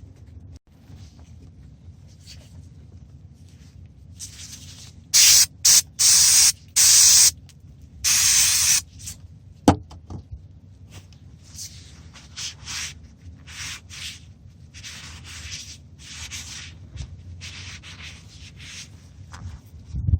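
A rag rubbing and wiping a metal pulley clean, with four loud hissing sprays of cleaner about a third of the way in and a sharp click soon after.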